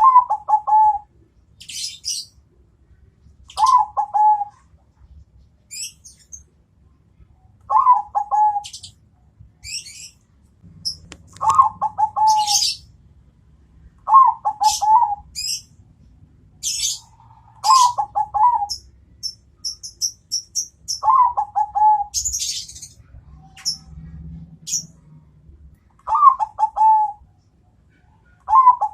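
Zebra dove (perkutut, Bangkok type) cooing: a short phrase of several quick notes, repeated about every three to four seconds, about nine times. High thin chirps of other small birds fall in between.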